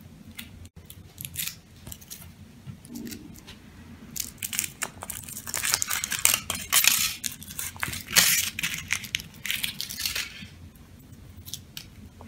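Foil wrapper of a chocolate surprise egg being peeled off by hand, crinkling in bursts that are loudest from about four to ten seconds in, with a few small clicks near the end.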